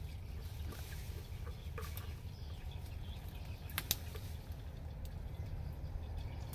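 Hand pruning shears snipping thin bamboo twigs: a few short sharp clicks, the loudest about four seconds in, over a steady low rumble.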